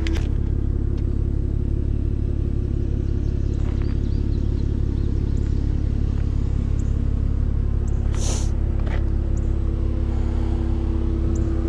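Dodge Charger's engine idling with the air conditioning on: a steady low rumble with an even hum over it. A short hiss about eight seconds in.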